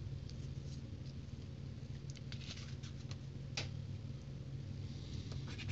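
A few light scrapes and clicks of card being handled, then about five seconds in, rapid scratching starts as the coating is rubbed off a scratch-off lottery ticket. A steady low hum runs underneath.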